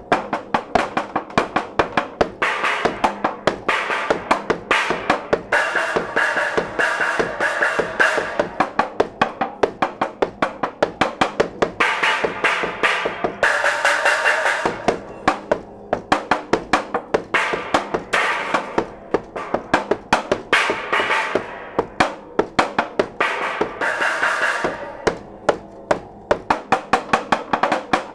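Curved sheets of thin white board and wood, bent into arcs on the floor, struck with soft-headed mallets in a fast, irregular stream of hits, several a second. Each hit rings briefly, and in places the ringing builds into a brighter swell between flurries.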